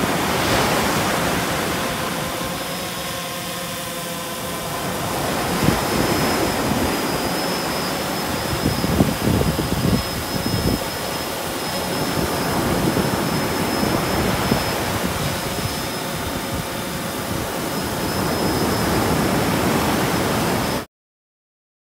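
Steady rushing noise of wind and surf at a beach, with a thin, steady high whine over it and a few low thumps. The sound cuts off abruptly near the end.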